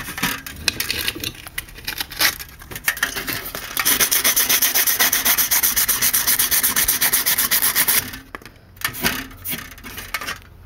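Close handling noise: a hand rubbing and scraping right at the microphone, with scattered clicks. A fast, rasping rub runs for about four seconds in the middle and stops suddenly, followed by a few more scrapes.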